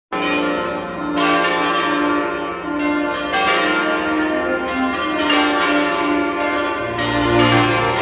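Several church bells of different pitch ringing together from a stone bell tower. The strokes come in quick, uneven succession, and each tone keeps ringing under the next.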